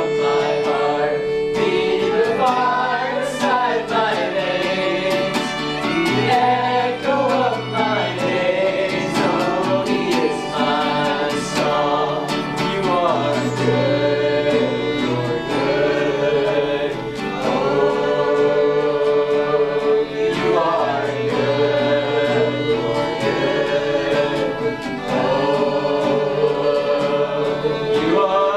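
Gospel song: several voices singing a melody over acoustic guitar accompaniment, continuous throughout.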